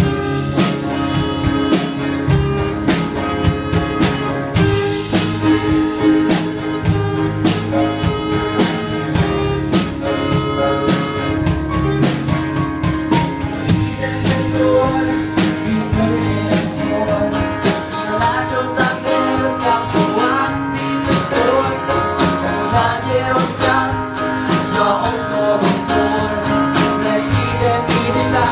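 Live band playing a song: a drum kit keeping a steady beat under acoustic guitar and keyboard, with a voice singing.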